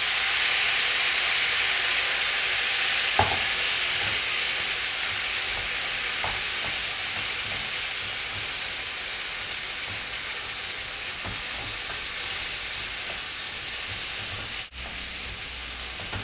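Loud sizzling as water hits a hot pan of frying potatoes and poppy seed, slowly dying down as the mixture is stirred. A couple of faint knocks are heard early on.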